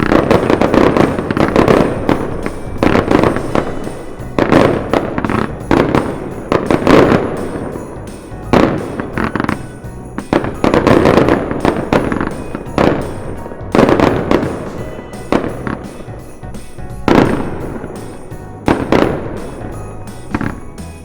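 Fireworks going off in quick succession, a sharp burst about every second, each trailing off in a ringing smear.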